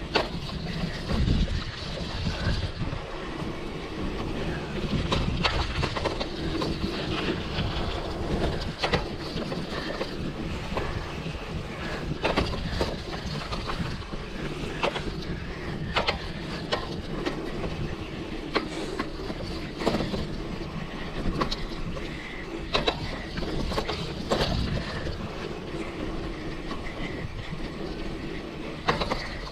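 Mountain bike riding along a trail: steady rumbling tyre and ride noise, with irregular knocks and rattles from bumps every second or two.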